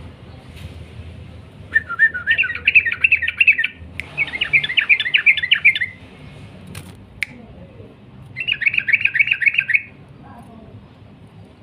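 Yellow-vented bulbul (trucukan) singing its long rolling 'ropel' song: three bursts of quick chattering notes, the third after a pause of about two seconds. Two sharp clicks come in the gap between the second and third bursts, over a faint low hum.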